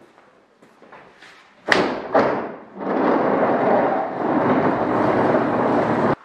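Two sharp knocks, then a loud steady scraping rumble as a large wooden work table is pushed across the shop floor, cutting off abruptly near the end.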